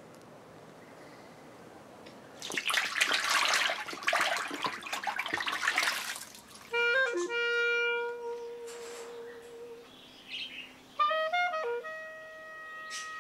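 A mass of crocodile hatchlings splashing and thrashing in shallow water for a few seconds. From about seven seconds in, a slow melody of held notes on a clarinet-like woodwind takes over.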